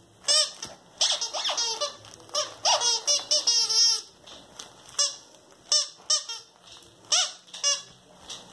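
Plush Chewbacca dog toy giving repeated warbling squeals as a dog bites and squeezes it. The squeals come in short bursts, several running together between about one and four seconds in, then singly and more spaced out.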